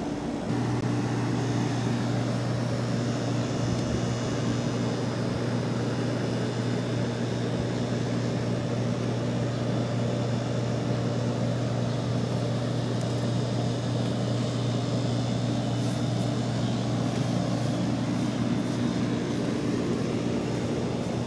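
A steady low machine hum with an even hiss over it, starting about half a second in and holding level without change.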